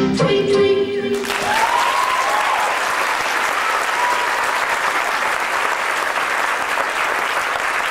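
Dance music stops about a second in, and an audience breaks into steady applause that runs on, with a voice or two calling out briefly as it starts.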